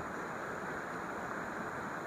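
Steady rushing of flowing river water, with no bird calls.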